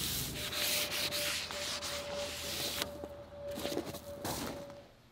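Hand sanding a cured gloss marine spar varnish coat on a wooden tabletop with 320-grit sandpaper: quick back-and-forth rubbing strokes along the grain, the finish powdering as it should when it is dry enough to sand. The strokes stop about three seconds in.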